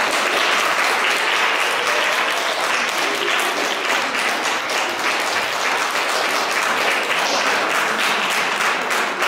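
Audience applauding steadily as an award is handed over.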